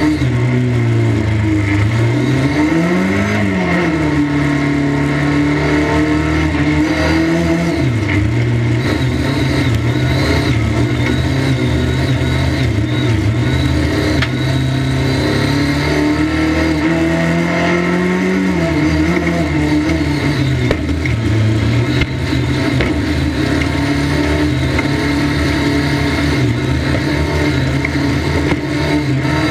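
1300cc stock car engine heard from inside the cockpit at racing speed, its note mostly held steady and dipping and climbing again a few times as the driver lifts and gets back on the throttle through the turns.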